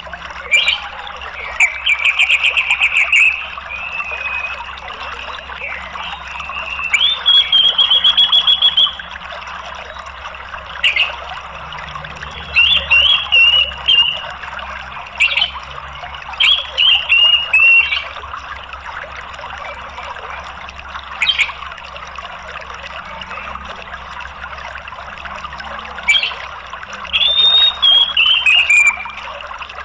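Orange-headed thrush singing in short bursts of fast trilled, rattling phrases, six times, with single sharp call notes in between. A steady rush of flowing water runs underneath.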